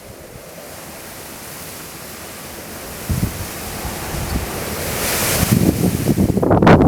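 Typhoon wind rushing and gusting, the steady roar rising in strength and peaking about five seconds in, with wind buffeting the microphone near the end.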